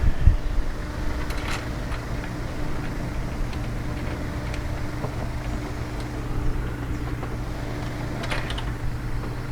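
A steady low mechanical hum with a few light clicks and rattles of small metal hardware being handled, most clearly about one and a half and eight and a half seconds in.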